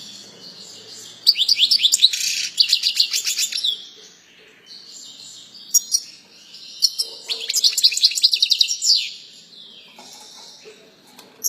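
A small songbird singing in bursts of rapid, high trilled notes. The two loudest phrases come about a second in and again from about seven to nine seconds, with quieter chirps between them.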